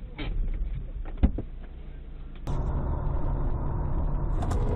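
Low rumble of a car driving, heard from inside the cabin, with one sharp knock a little over a second in. About halfway through it cuts to a different recording of a car driving, louder and steadier.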